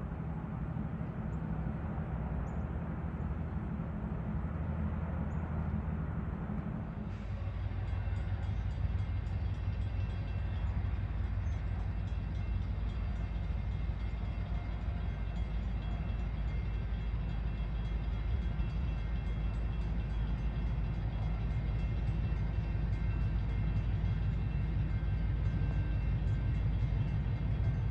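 EMD SW1200 diesel switcher locomotive running, its 12-cylinder two-stroke EMD 567 engine giving a steady low rumble. The engine note changes abruptly about seven seconds in, and the sound grows slightly louder toward the end.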